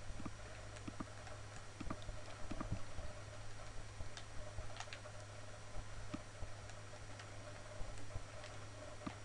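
Computer mouse clicking at irregular intervals, over a steady low hum.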